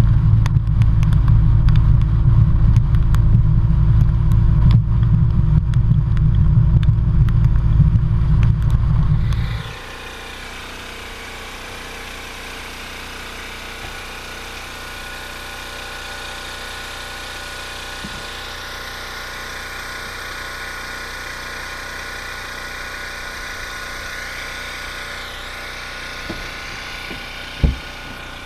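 Fishing boat running fast under outboard power: a loud low engine drone with wind buffeting the microphone. About ten seconds in it cuts abruptly to a much quieter steady hum, with a single sharp knock near the end.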